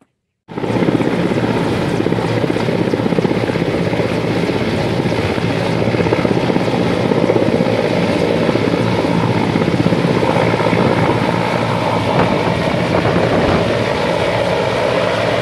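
Large helicopter hovering low over water with a slung firefighting water bucket, its rotor and turbine noise loud and steady. It starts abruptly about half a second in.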